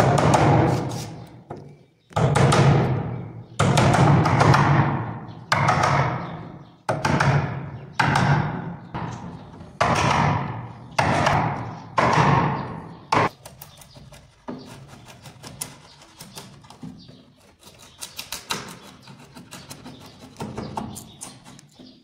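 Hammer driving a wood chisel into the edge of a wooden door to cut a lock mortise: about a dozen heavy, irregularly spaced blows, each ringing on in the room. About thirteen seconds in, they give way to many quick light taps and clicks as the chisel pares out the chips.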